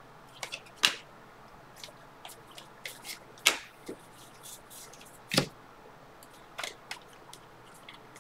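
A stack of baseball trading cards being thumbed through by hand: scattered soft clicks and rustles as the cards slide and snap past one another, with a few sharper snaps and a slightly heavier tap about five seconds in.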